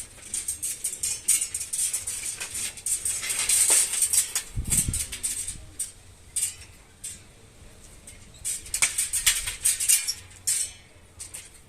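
Hard objects being handled, with irregular clicks, rattles and light scrapes and a single dull thump about four and a half seconds in.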